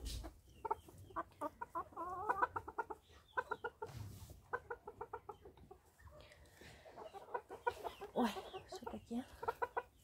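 Silkie chickens clucking: runs of short, soft clucks, with a brief lull about halfway through.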